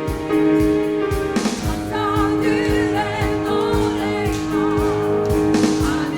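Vocal ensemble singing a Christmas hymn with vibrato over sustained keyboard chords and a steady beat; the voices come in about two seconds in.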